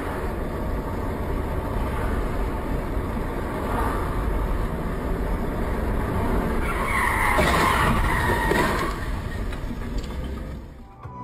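Steady engine and road rumble of a moving car, recorded by its dashcam. About seven seconds in, a louder, higher-pitched screech, like tyres skidding, rises for about two seconds and fades.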